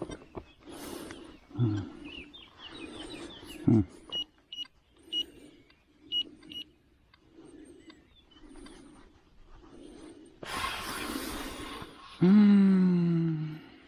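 An XP Deus metal detector giving tones as the coil is swept: soft low tones pulsing about once every 0.7 s, a few short high beeps in the middle, and a loud low tone lasting about a second and a half near the end. Just before that tone comes a burst of rustling.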